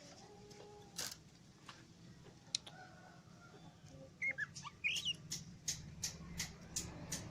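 Oriental magpie-robin (kacer) calling: a few short twisting whistled notes about four seconds in, then a run of sharp clicking calls about three a second.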